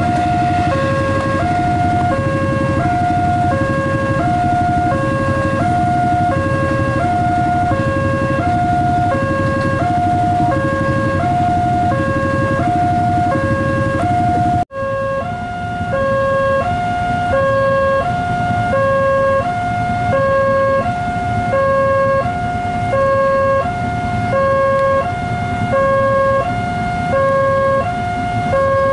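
Railway level-crossing warning alarm sounding steadily, two tones alternating low and high about once every three-quarters of a second, over the low rumble of an approaching electric commuter train. The sound cuts out briefly about halfway through and resumes.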